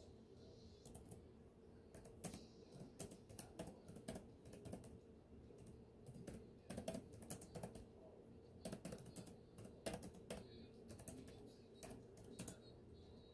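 Faint typing on a computer keyboard: quick keystrokes in irregular bursts with short pauses between them.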